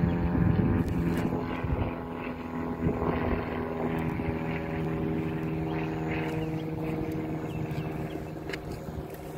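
Steady engine drone holding a constant pitch, with low wind rumble on the microphone strongest in the first second.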